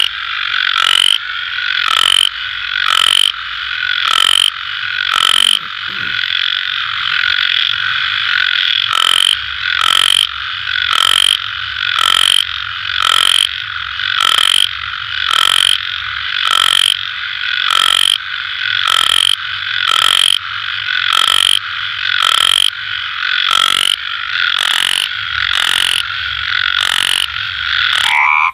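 Several frogs calling in a dense, continuous chorus of overlapping croaks, with a sharper, louder call repeating steadily about once a second.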